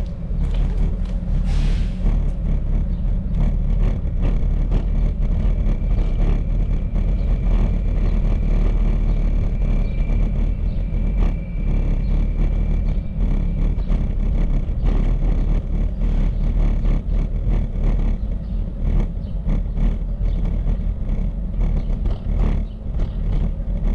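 Riding noise from a bicycle ride: a steady, loud low rumble of wind on the microphone and tyres on pavement, with many small rattles and clicks. A faint high whine comes in briefly around the middle.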